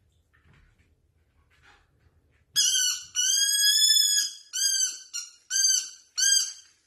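Dog chewing a squeaky rubber ball: high-pitched squeaks start about two and a half seconds in, one long drawn-out squeak followed by shorter ones roughly every half second to second.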